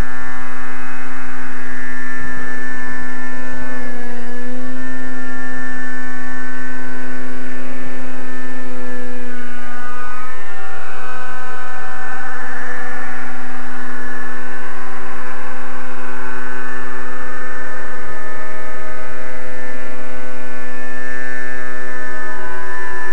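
Raptor RC helicopter's nitro engine running at a steady high pitch, its speed held by a governor, with small shifts in pitch about 4 and 10 seconds in.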